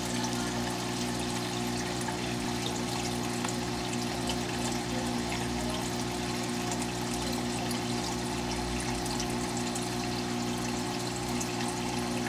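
Saltwater reef aquarium's circulating water: a steady trickle and splash of flowing water over a constant low pump hum.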